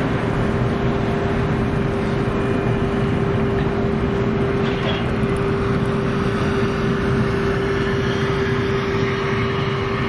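Steady drone of engines running, with a constant mid-pitched hum and no change in pitch or level.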